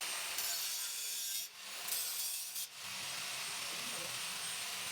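A steady rasping, rubbing noise, as of abrasive work, breaking off briefly twice.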